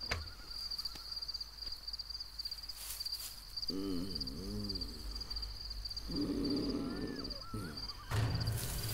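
Night-time ambience of crickets chirping in a steady high pulsing trill, with two pitched animal calls at about four and six seconds in. Music comes in near the end.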